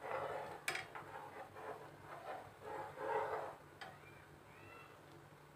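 A steel ladle stirring thickening milk as it boils in a pan. There is a sharp click of the ladle against the pan early on, then soft, irregular stirring and bubbling sounds for about three seconds, another small click, and a low steady hum underneath.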